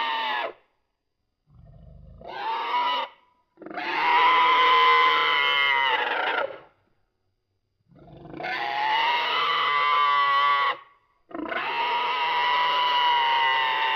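Creature sound effect made from pitch-modified pig recordings: a series of wavering, pitched squealing calls. After a short call, three long calls of about three seconds each follow, with brief silences between them.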